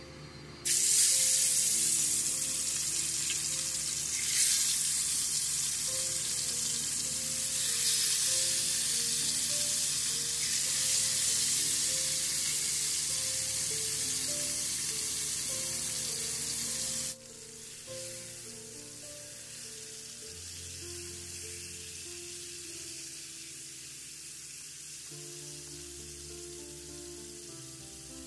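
Fish pieces frying in hot oil in a pan. A loud sizzle starts suddenly about a second in, as the fish goes into the oil, and drops abruptly to a quieter, steady sizzle past the middle. Background music plays underneath.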